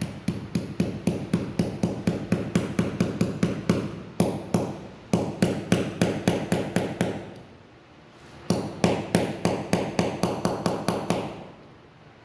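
Rapid, sharp hammer taps, about five a second, driving a ball bearing into a brush cutter's gear head housing. They come in runs, with short breaks about four and five seconds in and a longer pause around eight seconds in.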